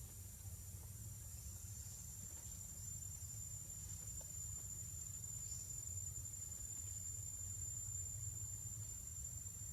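Insects droning in one steady, high-pitched tone that swells slightly toward the middle, over a low rumble.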